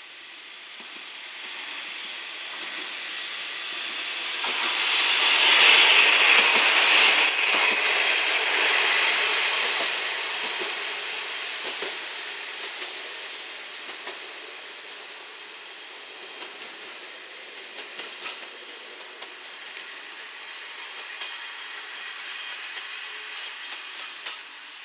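JR Shikoku 1000 series diesel railcar running in: a rising rush of train noise that peaks about six seconds in and fades, then a lower steady rumble with scattered sharp clicks of the wheels over rail joints and points as it rolls slowly in.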